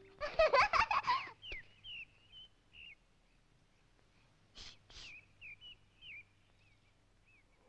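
Small birds chirping in short high calls throughout, with a loud burst of a child's voice in the first second or so and two short breathy puffs about halfway through.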